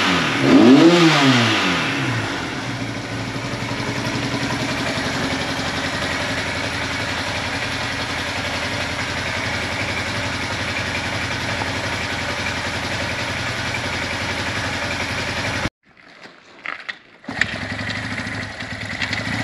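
Honda SL175's parallel-twin four-stroke engine revved once near the start, its pitch rising and falling back, then idling steadily. Near the end the sound drops out abruptly for about a second and a half before the engine is heard idling again.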